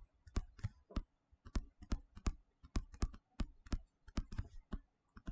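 A stylus tapping and clicking on a tablet screen while handwriting words: a quick, uneven run of light clicks, several a second.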